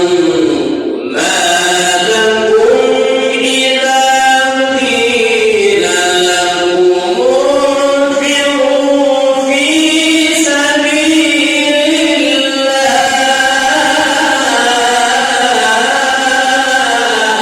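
A man's voice reciting the Quran in the melodic, drawn-out tajweed style: long held phrases whose pitch rises, falls and is ornamented, with a brief breath about a second in.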